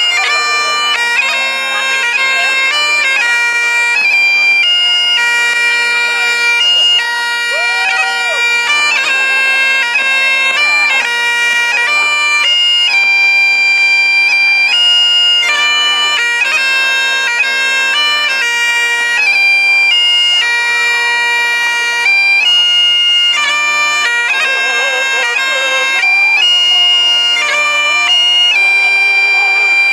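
Bagpipe music: a melody of quickly changing notes played over one steady, unbroken drone.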